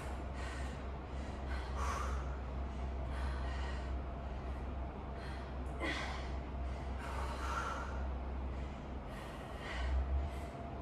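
A woman breathing hard from exertion, with short forceful exhalations every second or two, over a steady low hum.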